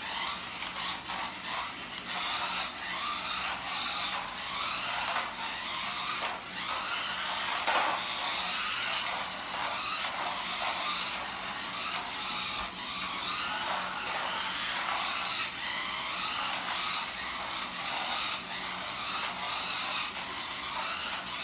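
Small electric drive motor and gears of a toy remote-control spray racing car whining as it drives across a tiled floor, the pitch rising and falling with the throttle, with scattered clicks.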